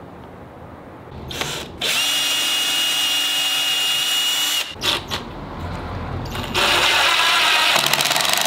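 Cordless drill/driver sinking a screw through plywood into the sled fence. The motor whines steadily for a few seconds, stops with a couple of clicks, then runs again from about six and a half seconds with a harsher, rapid rattling as the screw drives home.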